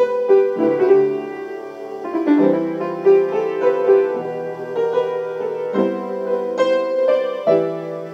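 Slow, gentle piano music with sustained chords and a melody of struck notes.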